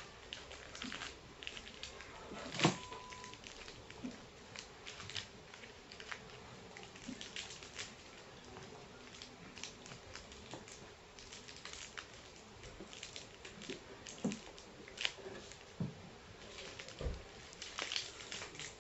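Plastic candy wrappers crinkling and tearing as they are opened, cut with scissors and by hand, in many small irregular crackles and clicks. A sharp click a little under three seconds in is the loudest.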